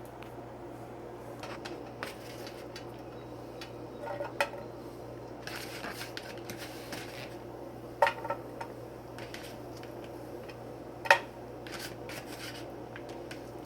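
Cookware and utensils clinking and knocking while cooking: a handful of sharp knocks, one much louder near the end, over a steady low hum.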